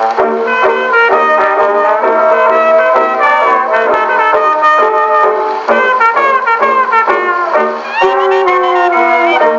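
Early-1920s jazz dance band with trumpet and trombone leading, acoustically recorded on a 1923 Edison Diamond Disc and played on a 1922 Edison London Console phonograph. The sound is thin, with no deep bass, and faint surface clicks run under it.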